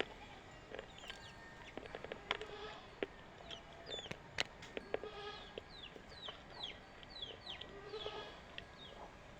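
Scattered sharp crunching clicks of slate pencil being bitten and chewed. From about a third of the way in there is a rapid series of short, falling chirps from chickens.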